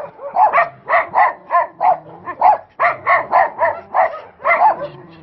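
Dogs barking, a steady run of short barks at about three a second.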